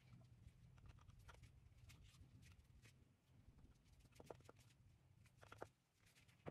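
Near silence: a few faint light clicks and taps, clustered about four seconds in and again about five and a half seconds in, as a spatula scrapes the last of the wet mixture from a small bowl.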